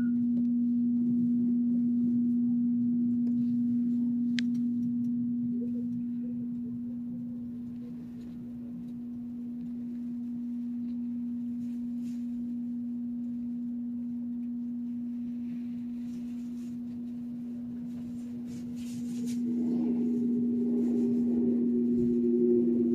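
A steady, unchanging tone over faint noise. About two-thirds of the way in the noise grows louder and a second, higher tone glides slowly down.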